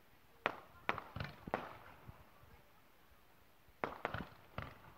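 Aerial firework shells bursting: a quick run of four bangs starting about half a second in, then another run of four around four seconds in.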